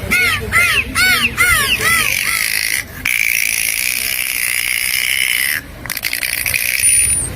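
Dolphin calls: a quick run of short rising-and-falling chirping whistles, about three a second, then one long steady whistle, and after a brief break a buzzing rapid click train near the end.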